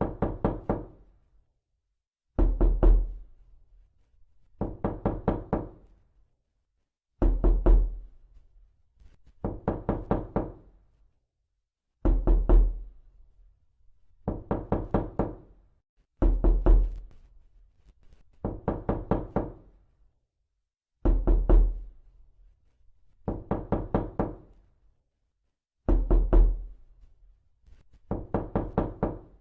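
Knocking in quick bursts of about five raps, each burst a little over a second long, repeating evenly about every two and a half seconds with silence between; every other burst starts with a heavier thud.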